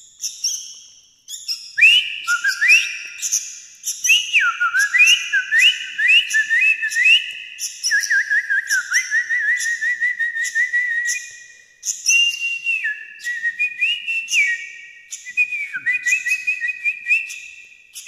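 A young sooty-headed bulbul perched on a hand, calling in short high chirps, over a long run of whistled notes that glide up and down and step between pitches, starting about two seconds in.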